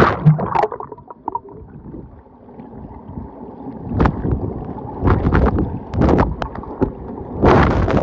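The microphone plunges into the water with a loud splash, and the rushing hiss cuts off. Then come muffled underwater gurgles and swishes from a swimmer's strokes, in several surges, with louder splashing near the end.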